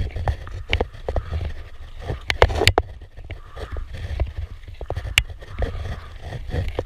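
Kayak paddle strokes from an inflatable kayak: the paddle blades dipping and splashing in the water, with sharp clicks and knocks at irregular intervals, the loudest about two and a half seconds in. A steady low rumble runs underneath.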